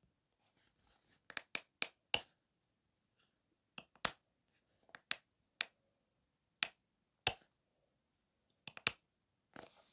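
Silicone pop-it fidget toy bubbles being pressed: a dozen or so sharp pops at uneven intervals, a few in quick succession about a second and a half in and again near the end.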